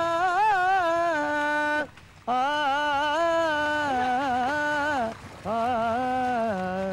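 A single voice singing long, ornamented held notes that waver in pitch, in three phrases broken by two short pauses for breath.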